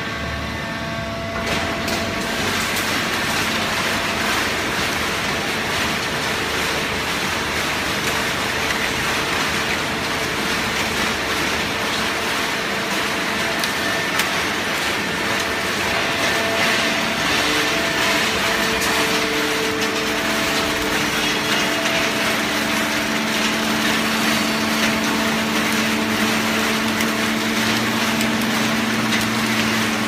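Fully automatic horizontal hydraulic baling press running: a loud, steady mechanical noise with a steady hum, growing louder about two seconds in.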